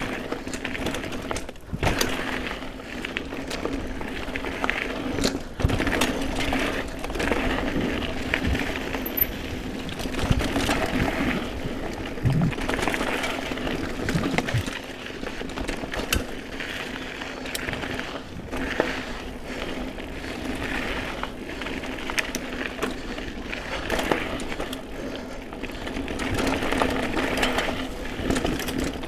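GT Aggressor Pro mountain bike riding over dirt singletrack: a steady mechanical buzz from the rear hub with tyre rumble and frequent sharp knocks and rattles as it goes over bumps and roots.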